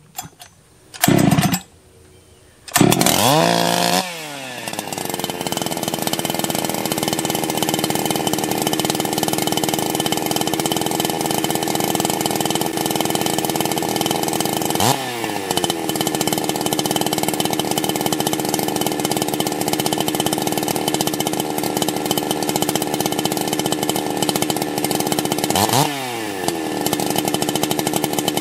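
Husqvarna two-stroke chainsaw restarted on choke: it fires briefly a couple of times, catches about three seconds in at a fast idle, then drops back to a steady idle. It is revved briefly twice, about halfway through and again near the end.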